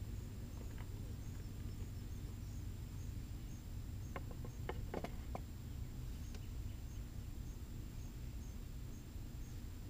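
A quick run of about five sharp clicks, about four to five and a half seconds in, as a long metal Flow Hive key is handled at the hive, over a steady low outdoor rumble.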